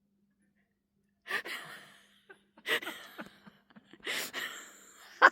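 Water deer giving three harsh, screaming calls about a second and a half apart.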